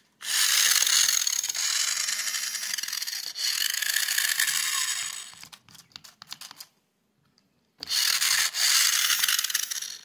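Toy remote-control car's small electric motor and plastic gearbox whirring as the wheels spin freely in the air, in two runs: one of about five seconds ending in a few clicks, then a short one of about two seconds near the end. It is the test run of the car on its new mobile-phone battery.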